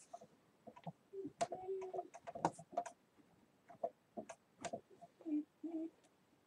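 Faint, irregular small clicks and taps, with a few brief low squeaks in between.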